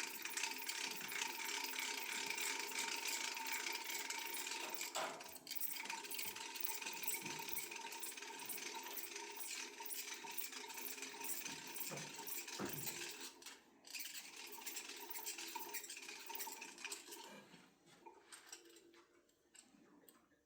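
Competition rubber-band-powered model helicopter in flight: its unwinding motor and spinning rotor make a rapid mechanical ticking whir that slows, fades and dies away about three-quarters of the way through.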